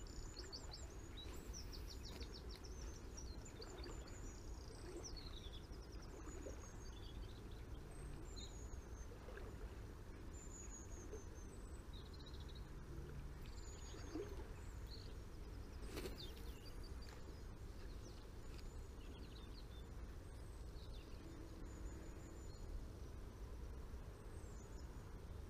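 Small birds chirping and singing in short falling whistles, busiest in the first half, over a steady low rush of running river water. One sharp click about two-thirds of the way through.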